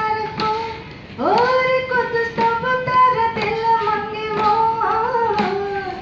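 A woman singing solo into a handheld microphone, holding long notes that bend slightly in pitch, with a brief pause about a second in before the next long phrase.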